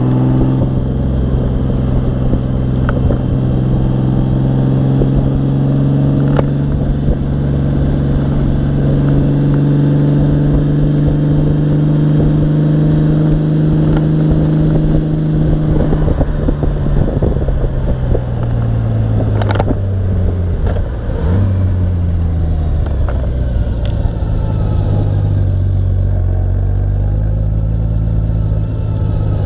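Honda Gold Wing motorcycle's engine and exhaust running at a steady cruise, heard from beside the rear wheel, with road noise from the car tyre fitted there. About halfway through the engine note falls as the bike slows, then holds at a lower pitch, with a single sharp click along the way.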